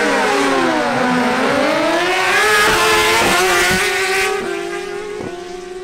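Two Suzuki GSX-R1000 inline-four sport bikes launching hard off the drag-strip line, their engines revving up through the gears with the pitch dropping at each upshift. The sound fades from about four seconds in as they pull away.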